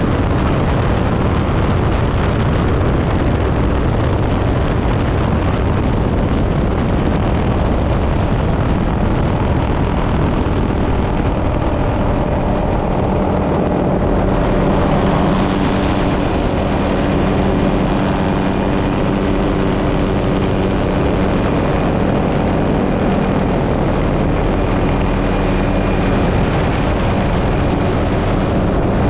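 Helicopter in flight: a steady, loud rush of rotor and engine noise, with a steady hum of several low tones coming through from about halfway in.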